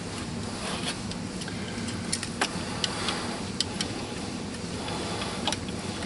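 Sharp metal clicks and taps, about six spread over a few seconds, as locking pliers (vise grips) are set and clamped onto the edge of the old crankshaft oil seal, over a steady low hum.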